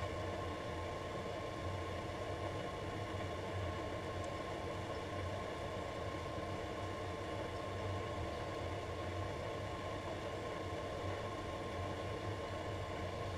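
Wood lathe running at a steady speed, giving a constant hum and whir that never changes.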